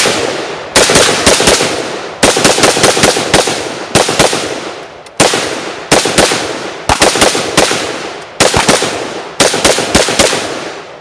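Gunshots from an AK-pattern rifle fired rapidly in short strings of several shots, about five a second, with brief pauses between strings, about eight strings in all. Each string leaves a long echo fading away.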